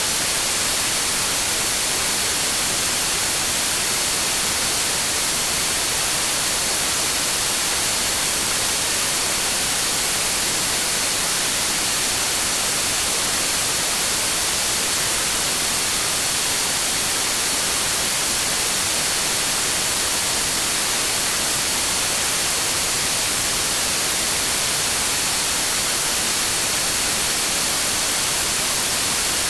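Continuous synthetic green noise: an even, unchanging hiss, brightest in the treble, with a faint steady high tone running through it.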